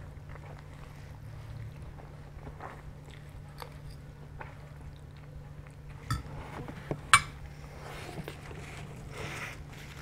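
Close-up chewing of spaghetti, with a metal fork clinking sharply on a ceramic plate twice, about six and seven seconds in, the second clink the loudest.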